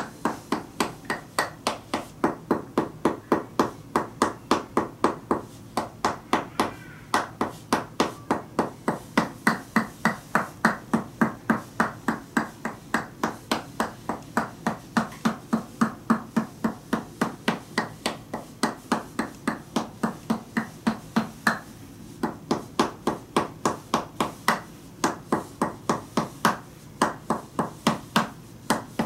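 Tok sen massage: a wooden mallet tapping a wooden wedge held against the body over a towel, a steady rhythm of about three knocks a second, each with a short woody ring. The tapping pauses briefly twice, about a quarter and three-quarters of the way through.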